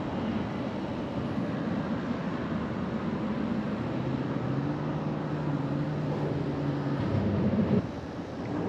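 A motor engine running with a steady low hum over a constant rushing noise; the hum is clearest from about four seconds in and drops away near the end.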